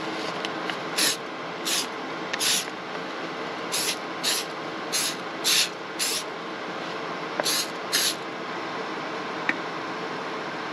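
Aerosol can of PAM avocado-oil cooking spray hissing in about ten short sprays over some seven seconds, over a steady low hum.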